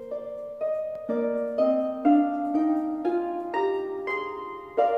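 Background music of plucked, harp-like notes, about two a second, each ringing on, the melody climbing step by step and starting a new phrase near the end.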